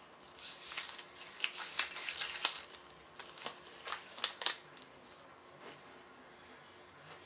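Latex-gloved fingertips scratching and rubbing on a textured fabric cushion: a run of scratchy rustles and sharp clicks for the first four and a half seconds, then a single tick near six seconds.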